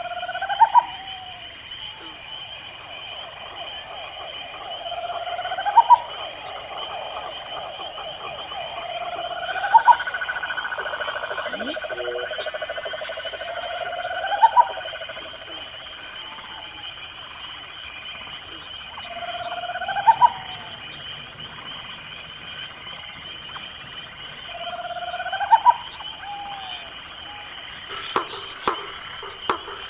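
Night chorus of crickets trilling steadily and high-pitched, with a short rising-then-falling call repeated about every five seconds and scattered high ticks.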